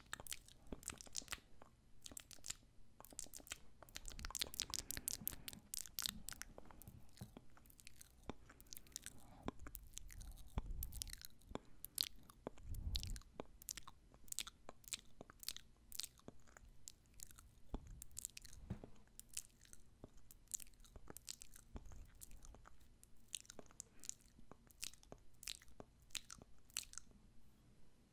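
ASMR mouth sounds made close to the microphone, mimicking eating the listener's ear: an irregular stream of soft clicks.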